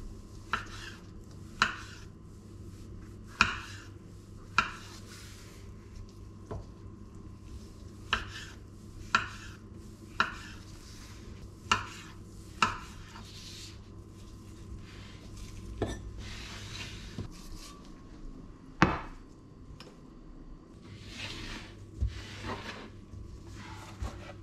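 Kitchen knife slicing mushrooms on a wooden cutting board: separate sharp knocks of the blade hitting the board, irregularly about one a second, each with a short scrape. In the second half the knocks thin out and longer scraping sounds come in between them.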